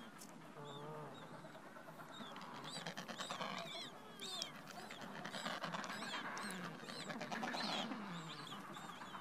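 Adélie penguin chicks peeping: many short, high calls in quick succession, with a few lower calls from the colony now and then. These are hungry newly hatched chicks begging to be fed.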